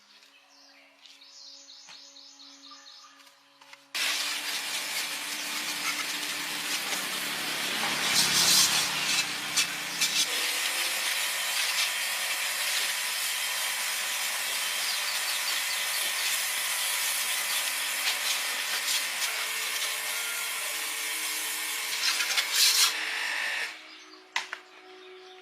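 A tool working on material with a steady, harsh rasping noise. It starts suddenly about four seconds in, has a few knocks a few seconds later, and cuts off shortly before the end.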